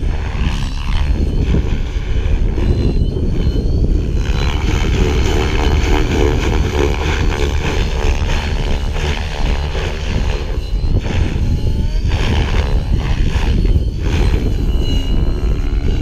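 Align T-Rex 550E electric RC helicopter in flight, its motor and rotor whine shifting up and down in pitch as it manoeuvres, over a heavy low rumble.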